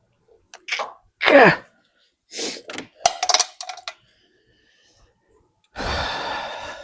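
Work-noise handling parts: a few short knocks and clatters, one sliding squeal that falls in pitch, and about a second of rustling hiss near the end.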